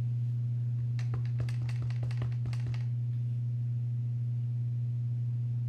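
A steady low hum, with a run of light taps and clicks between about one and three seconds in as a clear acrylic stamp block is handled and tapped onto a Memento ink pad.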